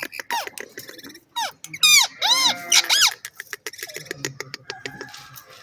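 A parrot calling: rapid clicks and short chirps, with a loud run of high, arching squawks about two seconds in, then more clicking chatter.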